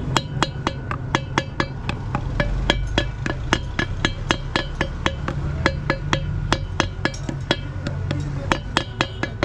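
Rapid hammer taps on a truck's steel wheel hub, about three a second, each with a short metallic ring.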